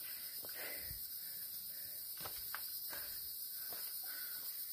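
A hiker's slow footsteps on a rocky trail, a few faint scuffs, over a steady high-pitched insect drone.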